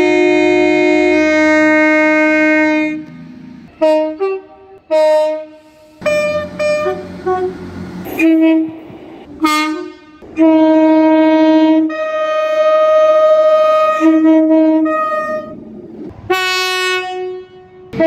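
Train horns sounding repeatedly: a long blast, then a run of short toots, another long blast and a last blast near the end. Some blasts hold two notes at once.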